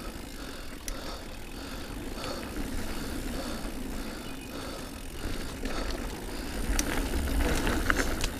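Diamondback Release 3 mountain bike riding over dirt singletrack: tyres rolling, a low wind rumble and rattles from the bike. It gets louder near the end, with several sharp knocks over bumps. Faint high chirps repeat about twice a second in the background.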